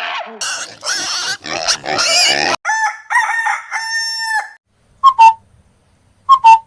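Birds calling: harsh, raspy calls for the first couple of seconds, then three pitched calls, the last one long and held, then a loud short two-note call about five seconds in, repeated near the end.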